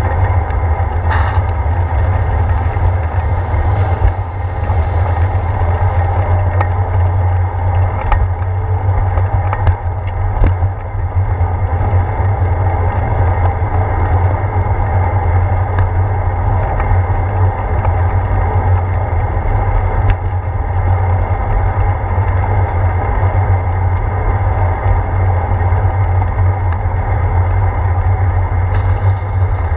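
Steady low wind rumble on a handlebar-mounted GoPro's microphone, with road noise from a bicycle rolling on wet pavement. A few short knocks from bumps are scattered through it.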